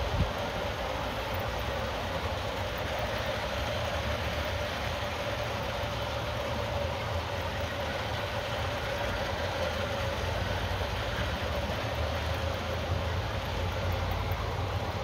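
Steady rolling rumble of a long G-scale model freight train's cars running along the track, with a faint steady hum over it.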